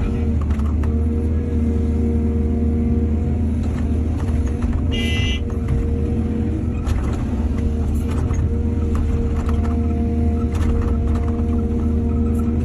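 Excavator's diesel engine running steadily, with scattered knocks and a short high-pitched squeal about five seconds in.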